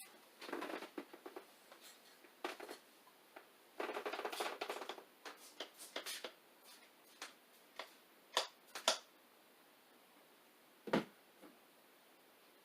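Faint handling sounds from fitting a wet vinyl windshield decal: two short stretches of rustling, then a few sharp clicks.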